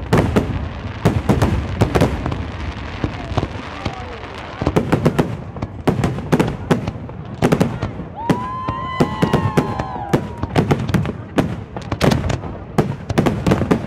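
Fireworks display: a rapid, irregular barrage of aerial shell bangs, several a second. A wavering whistle sounds for about two seconds, starting about eight seconds in, over the bangs.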